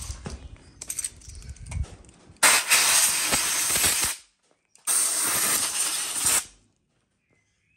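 Compressed-air blow gun blasting twice, each a loud hiss of under two seconds with a short break between, blowing grinding debris out of a freshly ground hole in an engine block. Light knocks and rustling of handling come before the first blast.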